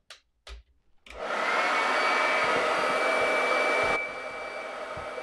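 A hand-held hot-air dryer is switched on about a second in and blows steadily with a thin high whine, drying freshly applied liquid chalk marker ink. About four seconds in it gets noticeably quieter but keeps running.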